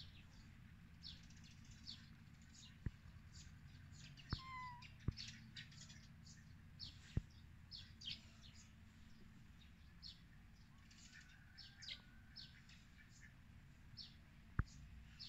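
Faint chirping of small birds, many short high calls scattered throughout, over a low steady hum. A few sharp clicks stand out louder, the sharpest near the end.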